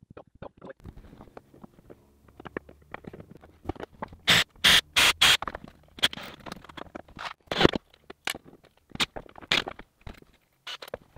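Small clicks, taps and knocks of hands handling hinge hardware, screws and a cordless drill while fitting new hinges to a wooden cabinet door. A quick run of four louder sharp clatters comes about four to five seconds in, with a few more single knocks after.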